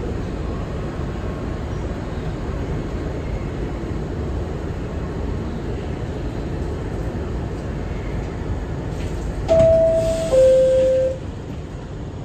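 Steady rumble inside an R62 New York City subway car. About nine and a half seconds in, the two-tone descending door chime sounds, a higher note followed by a lower one, signalling that the doors are about to close.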